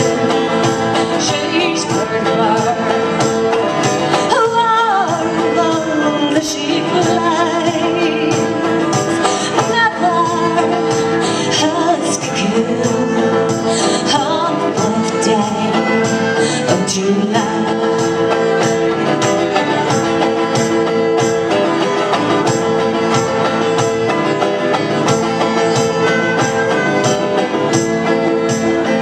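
Fiddle and resonator guitar playing an instrumental break. The fiddle leads, sliding between notes, over strummed chords and a steady beat.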